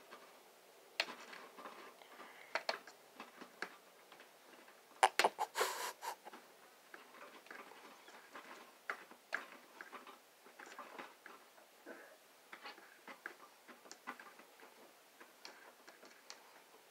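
A cat clawing and biting at newspaper: irregular crinkling and tearing of paper with scattered clicks, and a louder flurry of rustling about five seconds in.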